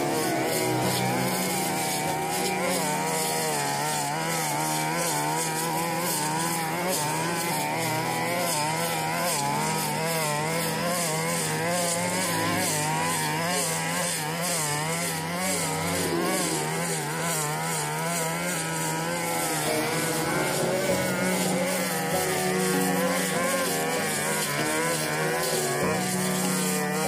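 A 42cc backpack brush cutter engine running at high revs, its pitch rising and falling as the metal blade cuts through tall, thick grass.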